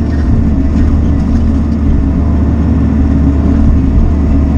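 Bobcat E42 mini excavator's diesel engine running steadily under load, with the hydraulics working the arm and bucket as it digs.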